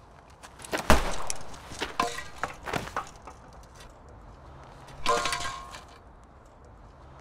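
A car boot being opened with a heavy thud about a second in, then rustling and knocks from the bound man moving inside it. A second short burst of rustling and scraping comes about five seconds in.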